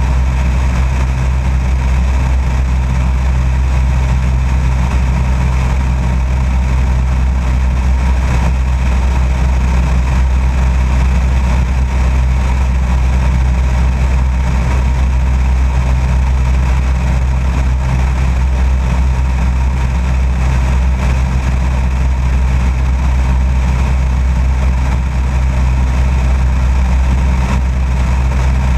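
Light aircraft's piston engine and propeller droning steadily in level flight, picked up by a camera mounted outside under the fuselage, with rushing airflow over it.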